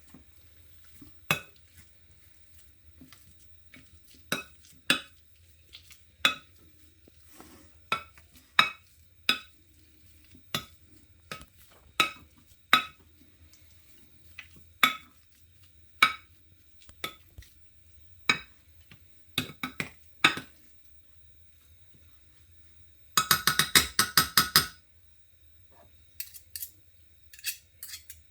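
Kitchen utensil knocking and scraping against a pot while mashed potatoes are creamed. There are single sharp knocks every second or so, then near the end a quick rattle of about a dozen rapid knocks.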